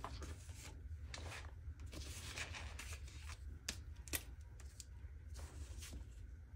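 Quiet rustling and light clicks of a sheet of paper being slid and handled on a tabletop, then a pen writing on the paper near the end, over a low steady hum.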